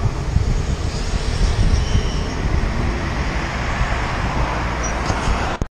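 Wind rumbling on an action camera's microphone and tyre noise on asphalt as a bicycle rides along a street, with road traffic. The sound drops out abruptly for an instant near the end.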